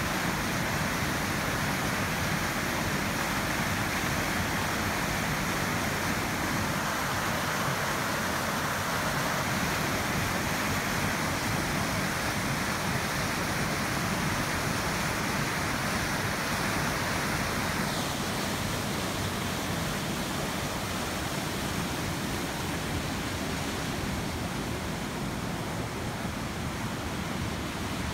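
Water rushing and splashing steadily as it spills from a watermill's race into the channel below. About two-thirds of the way through the rush loses some of its brightness, and it grows fainter near the end.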